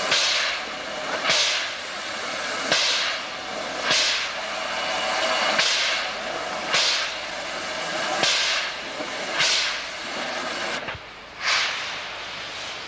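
Narrow-gauge steam locomotive exhausting in slow, even chuffs, one sharp steam hiss about every second and a bit, each fading before the next.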